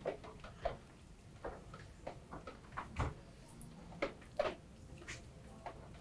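Basting brush dabbing and spreading sauce over the skin of a whole sturgeon: a series of soft, irregular wet taps and brush strokes, with a louder tap about four seconds in.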